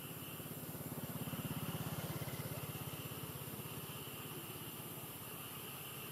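A small engine running unseen, with a fast low pulsing note that grows louder about a second in and fades again after about three seconds.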